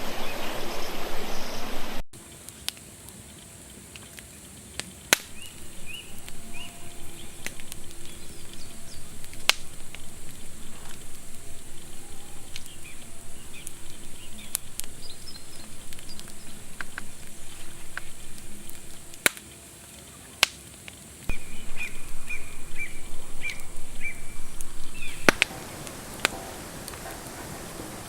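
A stream rushes at first. Then, after a cut, birds chirp over a quieter outdoor background, with scattered sharp clicks and knocks.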